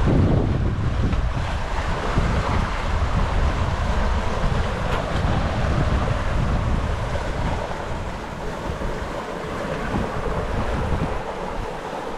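Strong gusting wind buffeting the microphone over the steady rush of waves and foaming water along a sailboat's hull in 30-plus-knot winds. It eases a little in the last few seconds.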